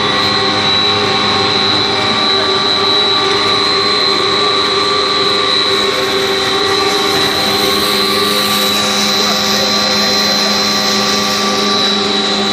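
Snack food extruder machine running steadily: an even mechanical drone with a constant high whine over it.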